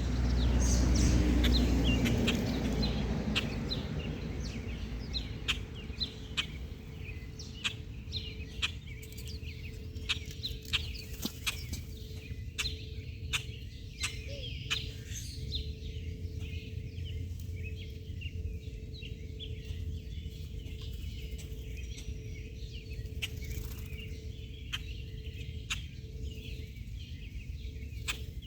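Birds chirping and calling over and over, with scattered sharp clicks and taps. A low rumble is loudest in the first few seconds, then fades.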